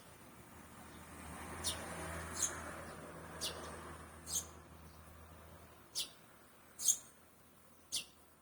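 Swallow calling in short, high, sharp chirps, about one a second, around seven or eight in all. A faint low rumbling noise swells and fades in the first half.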